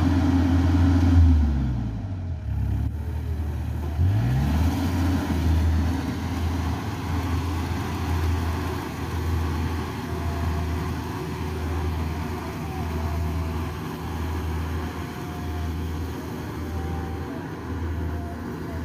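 Yanmar YH850 rice combine harvester's diesel engine running as the machine cuts through the crop, a steady low hum with a slight regular pulse. Its pitch sags and climbs back between about one and four seconds in.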